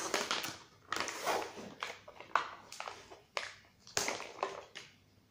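Plastic packaging crinkling and crackling in irregular short bursts as a packet of sugar cake decorations is torn open and its clear plastic tray handled, with a sharper crack about four seconds in.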